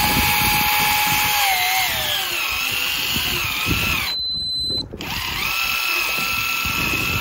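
Daiwa electric fishing reel's motor whining as it winds in line. Its pitch slides down and wavers about two seconds in as the speed is changed, it cuts out briefly past the middle, then it runs steady again at a lower pitch.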